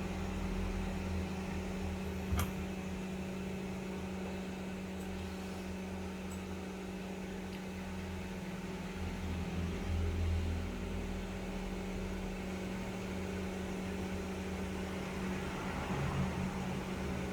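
A small motor-driven fan running with a steady low hum, with one faint click about two and a half seconds in.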